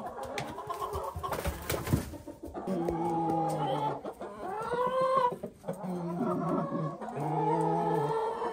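Chickens clucking and squawking, with several long drawn-out calls from about three seconds in.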